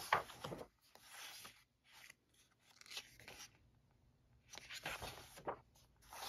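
Pages of a coloring book being turned and smoothed flat by hand: soft paper rustling and rubbing in a few short bursts.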